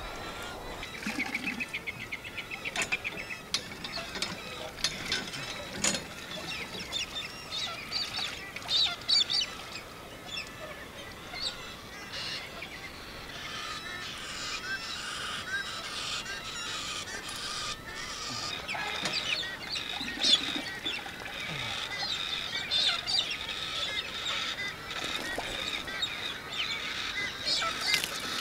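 Birds calling and chirping, many short irregular calls overlapping throughout.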